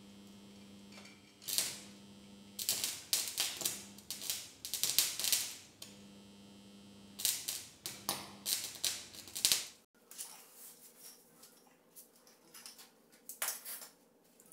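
Welding arc from a homemade transformer stick welder crackling and sputtering in repeated bursts as the rod is struck against the steel, with a steady transformer hum between strikes. The hum stops suddenly and a few faint knocks and a short clatter follow near the end.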